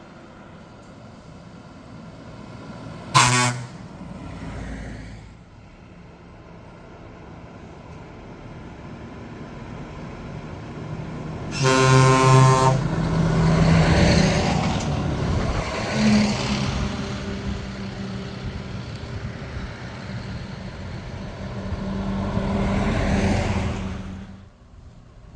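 Trucks' air horns and engines: a short horn blast about three seconds in and a longer, louder horn blast around twelve seconds. After it comes the loud running of open-pipe truck engines, which swells twice and drops off sharply near the end.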